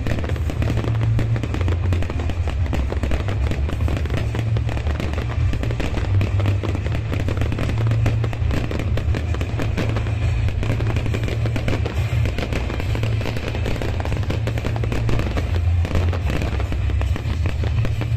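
Fireworks going off in quick succession, with dense crackling and popping from spark fountains and bursting aerial shells. Music plays through loudspeakers underneath, with a heavy, steady bass, as part of a pyromusical show.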